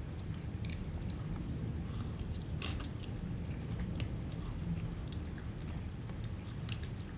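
Close-up mouth sounds of someone eating spaghetti: chewing with scattered small wet clicks and smacks.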